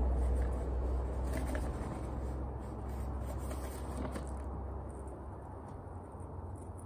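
Light scraping and rubbing of hands working on a potted bonsai, a few faint scattered ticks, over a steady low hum that eases off partway through.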